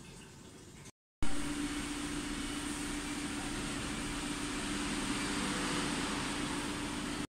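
Loud, steady mechanical running noise with one low, constant hum tone. It starts abruptly at a cut about a second in, after faint quiet background.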